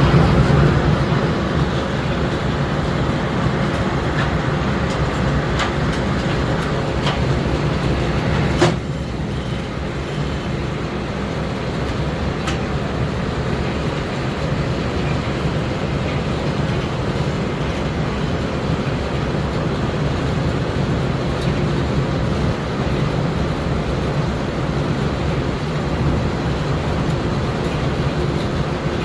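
Steam-engine-driven sawmill running: a steady mechanical rumble with a few sharp knocks scattered through it, the loudest about nine seconds in, after which it runs slightly quieter.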